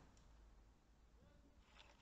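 Near silence: faint outdoor background, with a few very faint ticks near the end.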